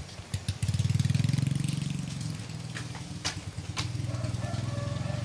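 Small petrol engine of a motorized disinfectant sprayer running steadily, growing louder about a second in, with a few sharp clicks around the middle.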